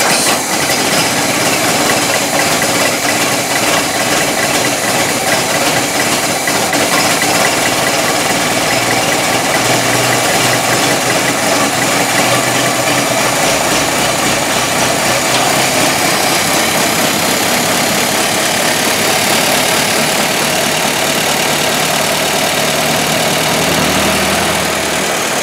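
1923 Ford Model T's four-cylinder flathead engine idling steadily, warming up after a cold start with a newly fitted exhaust manifold.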